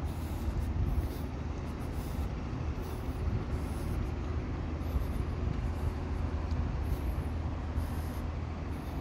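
Steady low rumble of vehicle engines, with faint scuffs recurring about once a second.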